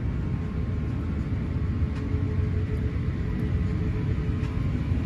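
Airbus A350 cabin noise: a steady low rumble with a faint steady hum above it and a few faint clicks.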